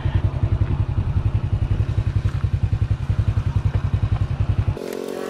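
Motorbike engine running with a fast, even low throb. About four and a half seconds in it gives way abruptly to a quieter, steadier hum.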